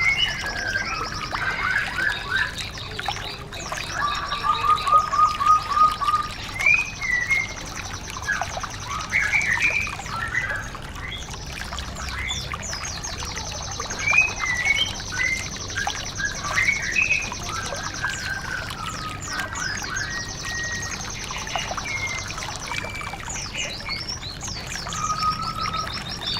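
White-eye (pleci, Zosterops) song recording: long, high, rapid trills repeated throughout, mixed with quick chirps and short whistled phrases, over a steady trickling-water background.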